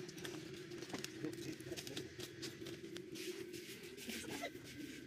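Salt being roasted in a pan over a wood fire and worked by hand: faint, irregular crackling and scratching of the hot salt grains against the pan, over a steady low hum.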